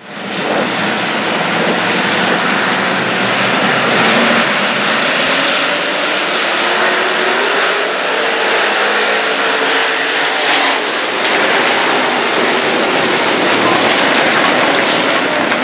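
A pack of dirt-track modified race cars running hard around a dirt oval, a dense steady wall of engine noise. Engine pitches rise and fall as cars pass, most clearly in the middle.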